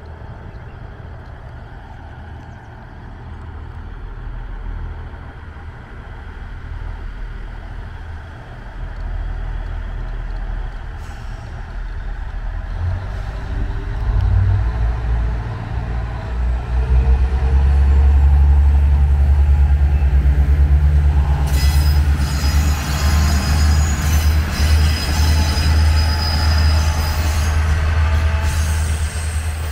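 KiHa 110 series diesel railcar: a low diesel engine rumble that grows steadily louder as the train draws near and passes close by. From about two-thirds of the way in, wheels squeal and hiss on the rails.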